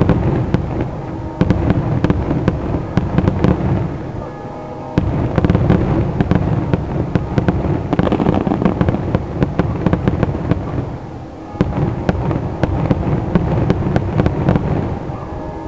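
Aerial fireworks shells bursting in quick succession: a dense run of sharp bangs and crackle over a continuous low rumble, easing briefly about four seconds in and again about eleven seconds in.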